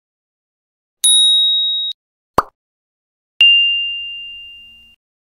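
Edited-in sound effects: a high bell-like ding that cuts off sharply after about a second, a short click, then a lower ding that fades away over about a second and a half.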